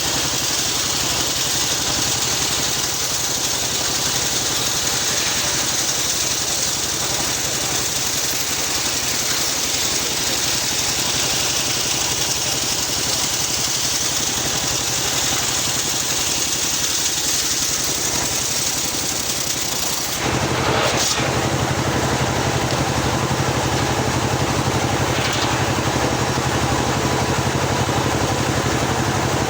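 Engine-driven homemade circular sawmill running, its blade ripping a long teak log. About twenty seconds in, the sound changes abruptly and gets louder, with a stronger low hum.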